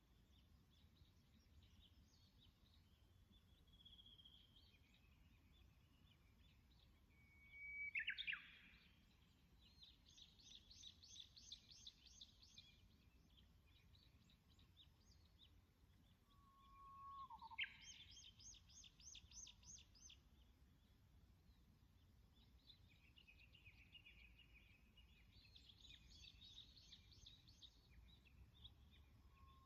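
Wild songbirds singing. A loud call sweeps down in pitch about eight seconds in, and bursts of rapid, high-pitched trilled notes recur three times, with a short lower whistle before the second burst. Under it all is a faint low background rumble.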